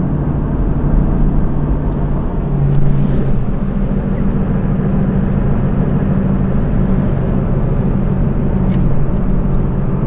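Truck engine and road noise while towing a travel trailer at highway speed: a steady low engine drone over tyre and wind rush.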